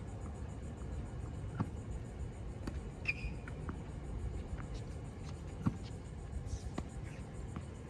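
Slinger bag tennis ball machine launching balls and a player volleying them back: a series of sharp knocks every second or so, the loudest about two thirds of the way through, over a low steady rumble.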